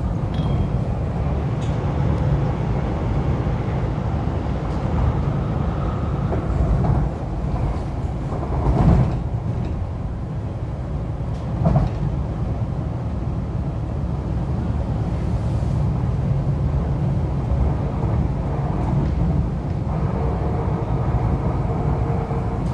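Interior running noise of an MTR East Rail Line R-Train electric multiple unit travelling at speed: a steady low rumble of wheels on rail. Two brief louder knocks come about 9 and 12 seconds in.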